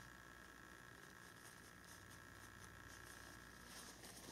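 Near silence: a faint steady room hum. Near the end, soft scratchy rustling begins as a tissue brushes over a dog's short coat.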